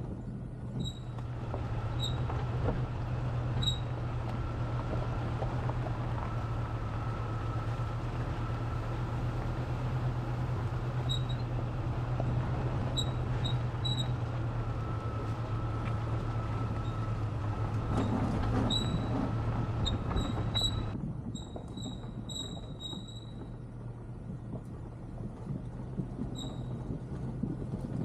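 A 1999 Jeep Cherokee XJ driving on a rough forest road: a steady engine drone with road noise, and short high squeaks scattered throughout. About three-quarters of the way through the driving noise drops off suddenly, leaving a quieter hum.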